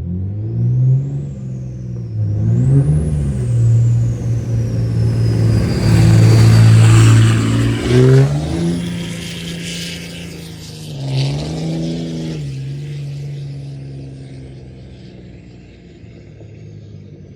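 Dodge pickup's Cummins turbodiesel engine pulling away and accelerating, its note climbing and dropping back several times. A high whistle rises and falls over the first few seconds and then fades slowly downward.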